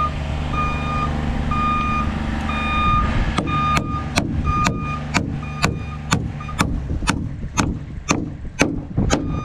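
A hammer driving nails into the wooden truss-to-post joint, sharp even blows about twice a second starting about three seconds in. Under it a machine's warning beeper sounds about twice a second over a steadily running engine.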